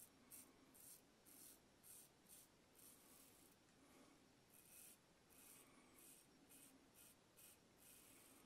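Vintage straight razor cutting through lathered stubble on the cheek: a faint, crisp scrape with each short stroke, about two strokes a second.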